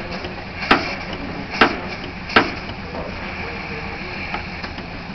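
Small toy press in a model machine shop worked by hand: its ram clacks down sharply three times, about a second apart, over a steady low background hum.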